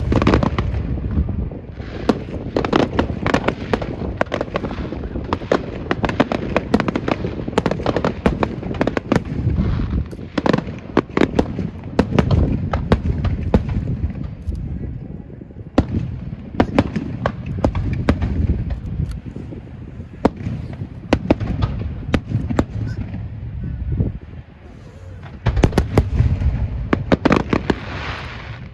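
Fireworks going off in rapid succession: dense crackling and sharp bangs over deep booms, easing briefly a few seconds before the end before picking up again.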